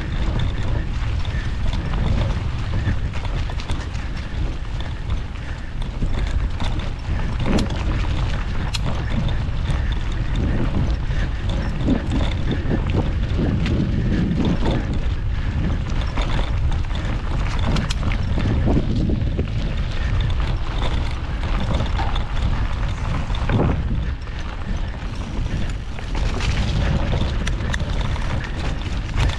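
Mountain bike ridden over a trail, heard from the handlebar: a steady heavy rumble of wind on the microphone, with many scattered knocks and rattles as the bike goes over bumps.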